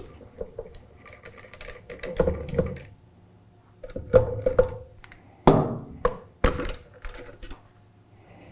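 A screwdriver backs the action screws out of a Remington 300 Ultra Mag in its wooden factory stock, and the steel bottom metal is lifted off: a run of small metal clicks and knocks on wood, with two louder clunks about five and a half and six and a half seconds in.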